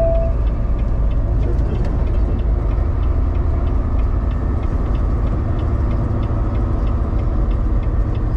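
Semi-truck cab at road speed: a steady engine and road rumble, with a faint, evenly spaced ticking above it.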